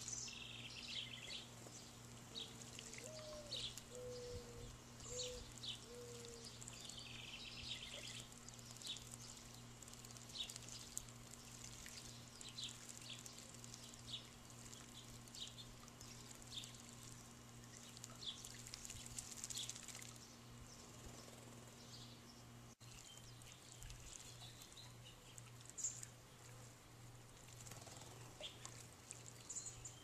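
House sparrows chirping, many short high chirps throughout, with the splash and wing-flutter of birds bathing in a bird bath.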